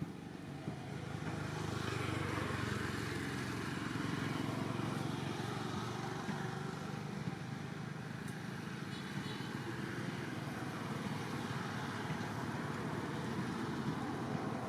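Steady low rumbling noise of a motor vehicle, growing louder over the first two seconds and then holding.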